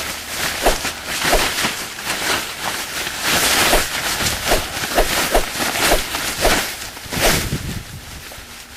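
A quick run of short hits and swishes, about two a second, dying down near the end.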